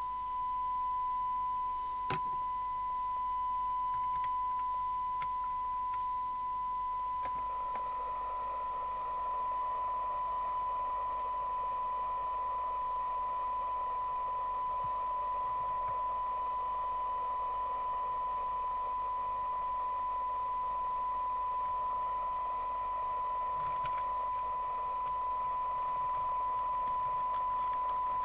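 Steady test tone from an FM CB receiver's loudspeaker, demodulated from a signal generator's modulated carrier, while the receiver's IF stages are being aligned; the audio is rough because the IF is far out of alignment. About seven seconds in, a rough hiss rises around the tone and stays, and there is a single click about two seconds in.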